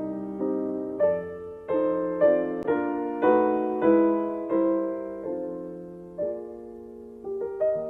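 Slow, gentle background piano music: chords and single notes struck about once or twice a second, each ringing and fading before the next.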